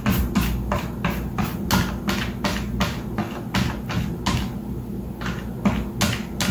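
Background music with a quick steady beat, about four sharp percussive hits a second over a steady low bass.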